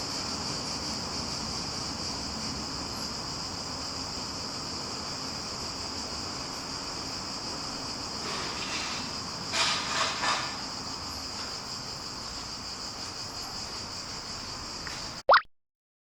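A steady high-pitched whine runs throughout. Two or three brief rustling noises come about ten seconds in. The sound ends in a short, loud rising sweep and then cuts off to silence.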